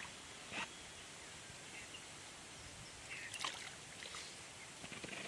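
Hands splashing and sloshing in a shallow, muddy pool while groping for fish: a few short splashes, the loudest about three and a half seconds in, over a faint steady background hiss.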